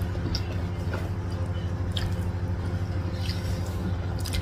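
Close-up eating sounds of soft rice noodles and rice: wet squishy chewing and a few separate sharp mouth smacks, about one a second. A steady low hum runs underneath.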